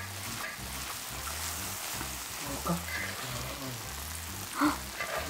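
Thick, cheesy risotto sizzling in a hot flat pan as it is stirred with a ladle and a wooden spatula, a steady crackle with a few short louder stirs.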